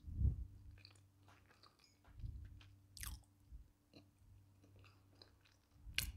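Close-miked chewing and crunching of a mouthful of chalk, soft and irregular, with a sharper crunch about three seconds in and another near the end.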